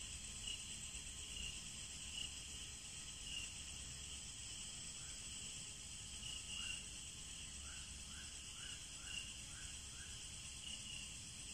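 Faint night-time insect chirping, short repeated chirps over a low steady background. About halfway through comes a quick run of about six short rising chirps.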